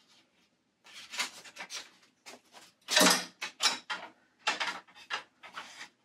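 Clothing being handled and laid out: irregular rustles and swishes of fabric, the loudest about three seconds in.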